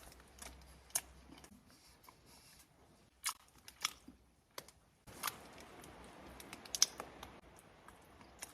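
Faint, scattered crinkles and clicks of a plastic bread wrapper being handled while a person eats a large loaf of bread.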